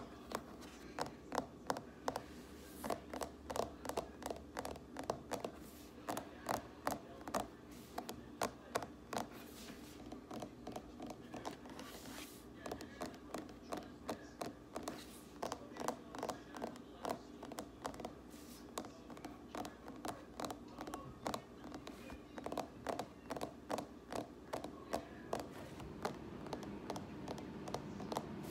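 Fingers tapping quickly and repeatedly on a hard surface, about three to four taps a second in runs with short pauses.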